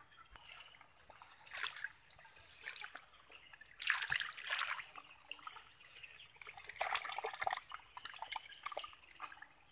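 Wet mud and shallow water sloshing and splashing as hands scoop mud and pack it around a bamboo frog trap, in a few irregular louder bursts.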